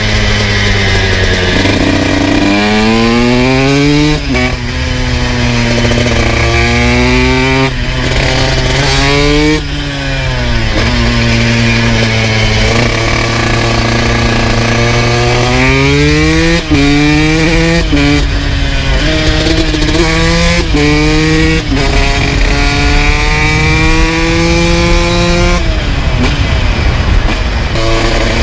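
2002 Honda CR125's 125cc single-cylinder two-stroke engine with an FMF full exhaust, ridden hard. The revs rise and drop again and again through quick upshifts and throttle-offs, hold steady for a few seconds in the middle, then climb once more before backing off near the end.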